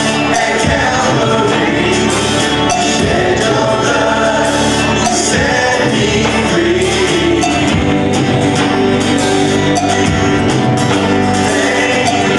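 Live worship band playing a song, with electric bass and electric guitar under singing voices.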